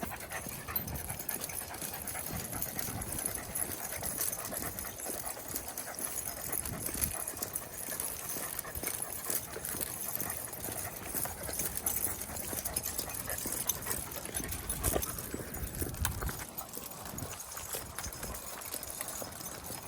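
Walking footsteps and dogs' paws on the ground as a pack of dogs is walked on leash, with dog sounds among them. A brief low rumble about three-quarters of the way through.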